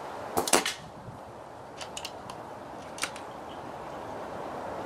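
Falcon Prairie .177 pre-charged pneumatic air rifle firing one shot, a sharp report about half a second in. It is followed by a few lighter clicks around two seconds in and one more near three seconds, the bolt being cycled to index the next pellet from the magazine.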